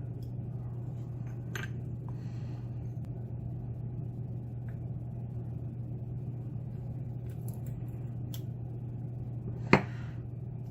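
Small metal clicks of a shim being worked into a lock cylinder, with one sharp click near the end, over a steady low hum.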